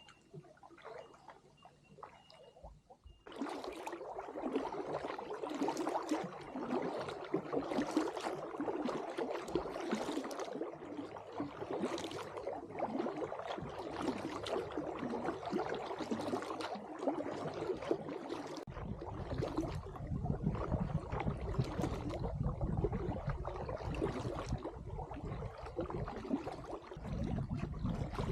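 Water splashing and gurgling around a paddled kayak, with a surge about every two seconds from the paddle strokes. From about two-thirds of the way in, wind rumbles on the microphone underneath.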